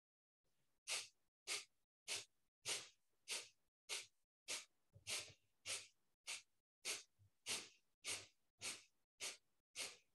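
Kapalbhati breathing: a woman's short, forceful exhalations through the nose, each snapping the belly in. About sixteen sharp puffs, evenly spaced a little under two a second, start about a second in, with no inhalations heard between them.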